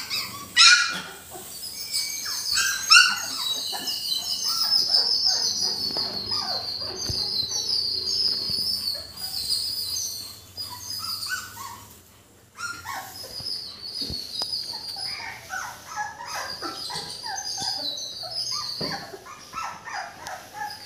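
A litter of young puppies giving many overlapping high-pitched squeaks and whines, with a few louder yelps near the start and a short lull about twelve seconds in.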